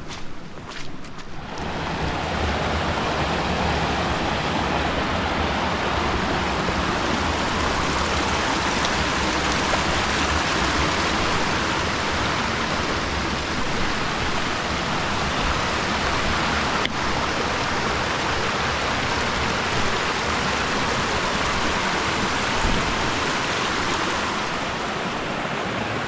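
Steady rushing of a mountain stream. It comes up about a second and a half in and eases slightly near the end.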